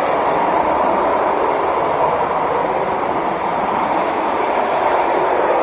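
Steady, loud jet engine noise from an Airbus A320-family airliner rolling down the runway after touchdown, its spoilers raised to slow it on the landing rollout.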